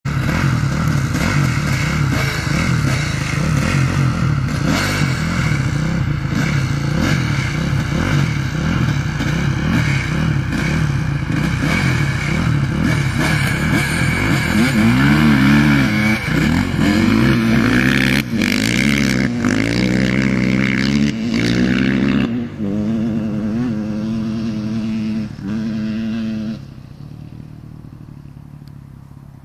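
A vehicle engine running hard and steady, then revved up and down over and over from about halfway through, with short rev blips before it drops away and fades near the end.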